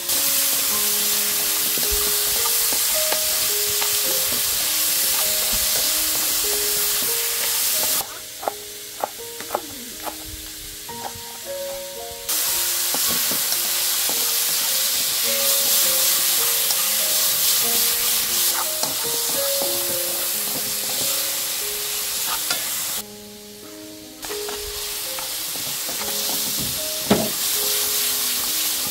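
Food frying in hot oil in a pan: a steady sizzle that cuts off suddenly about 8 seconds in and returns about 4 seconds later, then drops out again briefly near 23 seconds. Light clicks of a utensil are heard in the quieter gaps.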